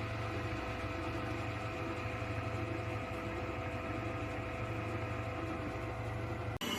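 Electric stand mixer's motor running at a steady speed, an even mechanical hum with a whine above it, cut off abruptly near the end.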